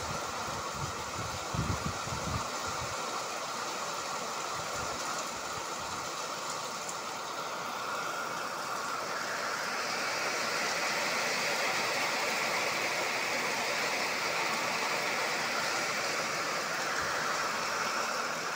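Heavy rain falling steadily on a cobbled street and tree leaves, a constant hiss that grows a little stronger about halfway through. A few dull low thumps come in the first seconds.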